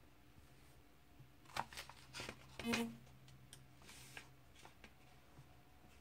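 Comic book pages rustling and crackling as the book is handled, a cluster of short papery crackles from about a second and a half to three seconds in, then a few faint ticks, over a low steady room hum.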